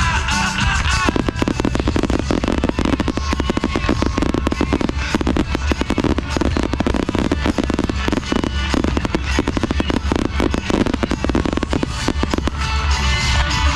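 A fireworks display firing in a dense barrage: aerial shells bursting and comets launching in a rapid string of sharp bangs and crackle, over loud music.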